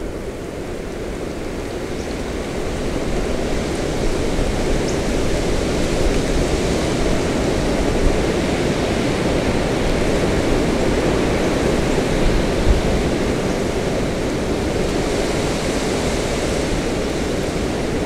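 Windstorm gusting through bare winter trees, picked up with a parabolic microphone: a steady rushing noise with a low rumble underneath, building over the first few seconds and then holding, with small gusts.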